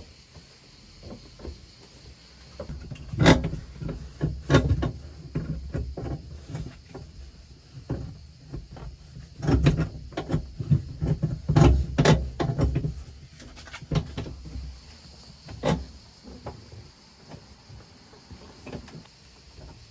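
Irregular knocks, thumps and rattles of the seat and cab panels of a Piaggio Ape three-wheeler being handled and fitted, in two clusters about three and ten seconds in, with a single knock near the end.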